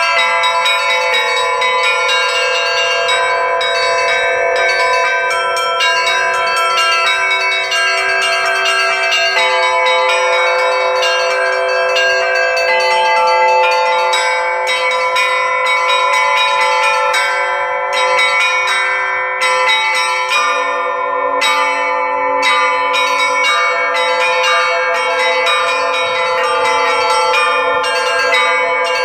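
A set of Russian Orthodox church bells from the LITEX foundry rung in a continuous peal. The small treble bells are struck rapidly over the held ringing tones of the middle and larger bells, and a deeper bell joins about two-thirds of the way through.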